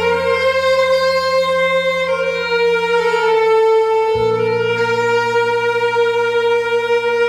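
Saxophone holding long, sustained notes over a backing track, the held pitch stepping down slightly about two seconds in while the low accompaniment chord changes about four seconds in, like the closing phrase of a slow ballad.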